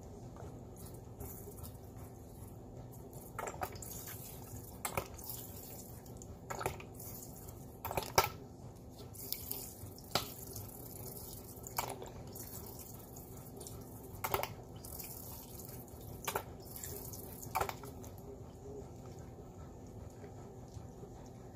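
Juice squirted from a plastic squeeze bottle into a plastic bowl of seafood: a hissing, sputtering stream broken by about nine sharp splats or clicks, one every two seconds or so, which stop a few seconds before the end.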